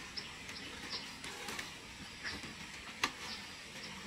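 Small birds chirping, short high falling notes repeating over and over, with a few sharp clinks of a knife and dishes on a metal tray. The loudest clink comes about three seconds in.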